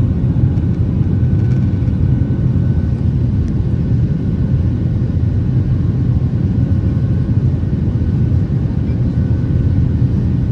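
Boeing 737-800 cabin noise heard from a passenger seat: the steady low rumble of the CFM56 jet engines and airflow, with faint steady tones higher up and no change in pitch or level.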